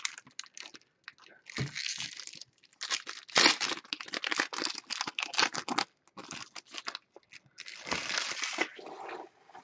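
Foil trading-card pack wrappers crinkling and tearing as packs are ripped open and handled by hand, in several bursts with short pauses between them.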